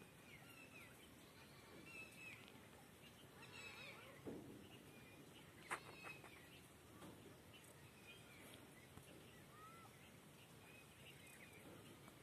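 Near silence with faint bird chirps here and there, and a single sharp click about halfway through.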